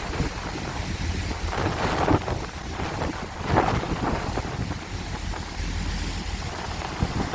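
Wind buffeting the microphone in gusts, strongest about two seconds in and again about three and a half seconds in, over a low steady rumble from a ferry's engines and the sea.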